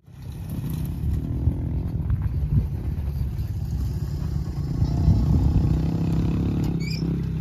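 Dirt bike engine running steadily as the rider crosses the dirt track, fading in at the start and getting a little louder about five seconds in.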